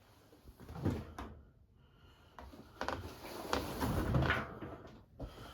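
Handling noise from a bundle of cotton towels: a soft knock about a second in, then a couple of seconds of rustling and bumping.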